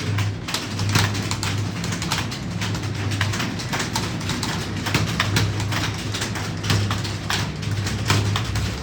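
Several computer keyboards being typed on at once in a timed typing test: a dense, irregular clatter of keystrokes, over a steady low hum.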